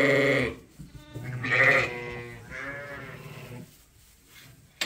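Sheep bleating twice: a quavering call that ends about half a second in, then a longer one from about one to three and a half seconds. A sharp click comes near the end.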